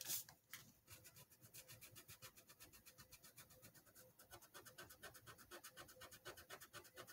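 Eraser pencil rubbed quickly back and forth on paper to erase fine pencil detail, a faint run of short scratchy strokes, several a second.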